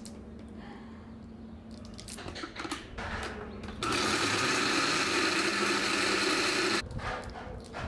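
Countertop blender running for about three seconds, crushing ice with milk and coffee into a frappé. It starts about halfway through after a few knocks of the glass jar being set on the base, and cuts off suddenly.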